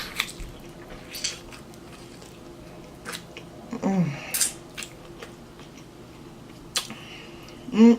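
Close-up eating: chewing with wet mouth clicks and smacks, one sharp louder crunch or smack a little past halfway. A short hummed 'mm' falling in pitch comes about four seconds in, and another voiced hum starts near the end.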